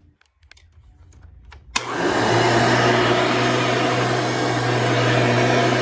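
1994 Hoover Runabout upright vacuum cleaner switched on with a click almost two seconds in, its new replacement motor then running loudly and steadily at full speed.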